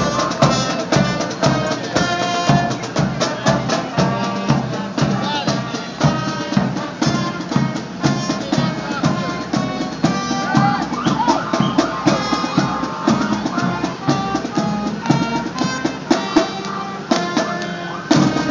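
High school marching band playing on the march: drums beating a steady rhythm with bass drum strokes under the horns' melody.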